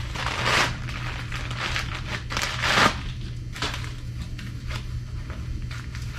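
Packaging crinkling and rustling in irregular bursts as a camshaft is handled out of its box, loudest about half a second and two and a half seconds in.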